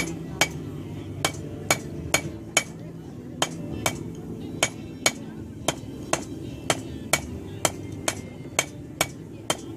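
Blacksmith's hammer striking hot steel bar on an anvil in a steady rhythm of about two blows a second, each blow with a short ring. The bar is being drawn out into a taper with the toe of the hammer.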